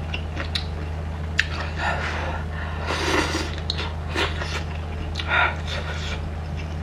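A person eating spicy instant noodles, with intermittent short slurping, chewing and breath sounds and a few sharp clicks. A steady low hum runs underneath.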